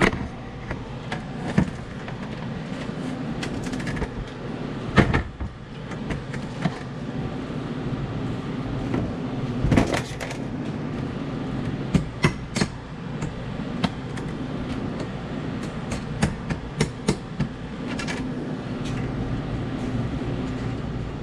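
Scattered metal clinks and knocks as parts of a Follett ice machine's auger assembly are handled and fitted onto the auger shaft, over a steady low machine hum.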